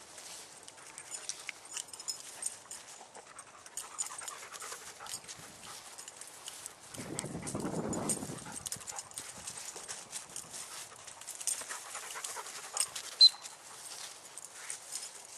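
A Weimaraner panting as it runs and searches through grass and fallen leaves, with rustling and light footfalls throughout. A louder rush of noise comes about seven to eight seconds in as the dog runs close by. A short, sharp, high-pitched click comes near the end.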